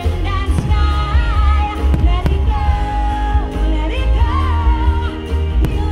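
Loud show music with a singing voice, played over large loudspeakers, under a low rumble, with sharp cracks of fireworks bursting about three times.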